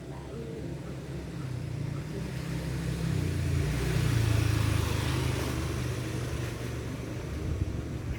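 A motor vehicle passing by: a low engine hum and tyre hiss that swell to their loudest about halfway through, then ease off.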